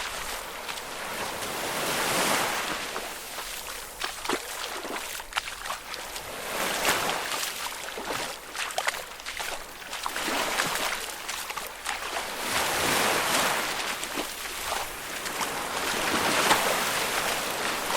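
Footsteps wading through shallow water: repeated splashing and sloshing that swells with each stride, with small drips and splashes between.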